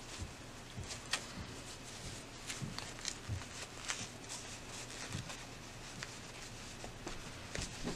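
Red satin fabric of a small sewn pouch rustling and crinkling in the hands as it is turned right side out, in scattered short rustles and soft clicks over a faint steady hum.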